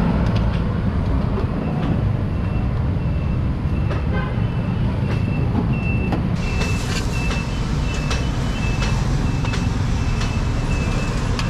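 A large vehicle's engine running close by, with a reversing alarm beeping about twice a second from about two seconds in. A metal spoon clinks now and then against a metal pot.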